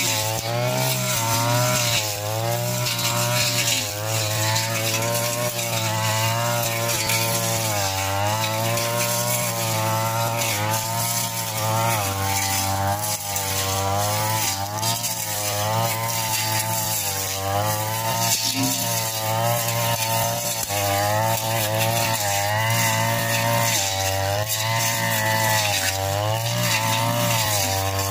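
Backpack brush cutter's small engine running at high speed throughout, its pitch dipping and rising again every second or so as the cutting head is swung through grass and weeds.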